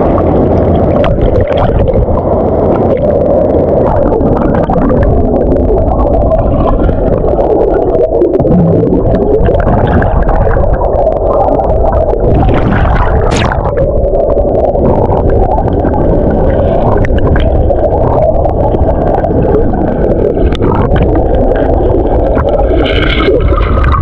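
Water gurgling and sloshing right against a camera at the waterline, which dips under the surface at times, over the muffled rush of a waterfall. There is one sharper splash a little past halfway.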